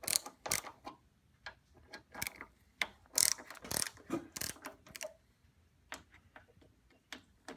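Ratchet wrench with a T40 Torx socket clicking in irregular bursts as bolts are backed out, the pawl ratcheting on each return stroke; the clicking stops about two seconds before the end.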